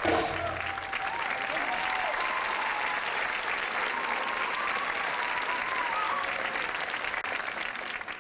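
Theatre audience applauding steadily, with a few voices cheering and calling out over the clapping.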